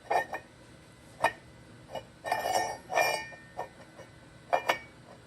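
Metal clinking and knocking as a square metal collar tube is test-fitted into a freshly milled pocket in a metal block: a few sharp clinks spread out, with a short scraping rub about midway. It is a failed test fit: the pocket is too small for the tube to go in.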